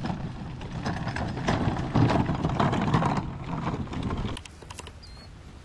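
Collapsible utility wagon loaded with duck decoys rattling and jostling as it is pulled over rough, dry ground, with footsteps; the clatter stops about four seconds in. Two short high chirps follow near the end.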